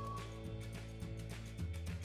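Instrumental background music with bass notes and a steady beat.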